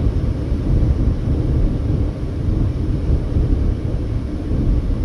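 A car being driven on the interstate: a steady low rumble of tyre and road noise with the engine underneath, with no distinct events.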